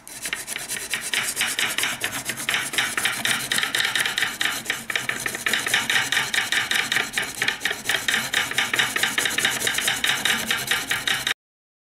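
Abrasive sharpening bar on a wooden guided jig, stroked by hand back and forth along a clamped scissor blade: a steady rasping of rapid, even strokes, each with a slight knock at the turn. It cuts off suddenly near the end.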